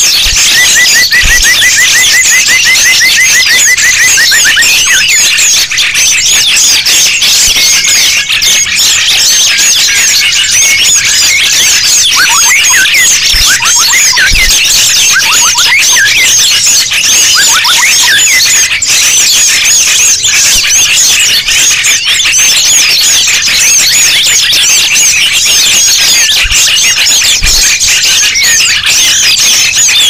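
Bird-lure recording of many small songbirds chirping and twittering at once, a dense, noisy chorus of overlapping high calls. A fast trill of repeated notes runs through the first few seconds, and a run of short falling whistles comes in the middle.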